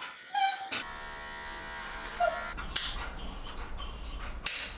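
Small cordless pet trimmer buzzing steadily from about a second in as it shaves a Siberian husky's paw pads, while the husky whines briefly a couple of times. A few short, sharp hissy bursts come in the second half.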